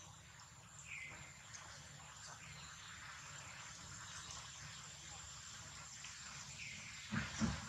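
Faint outdoor ambience with a steady high insect whine, two short chirps about a second in and again near the end, and a brief louder thump just before the end.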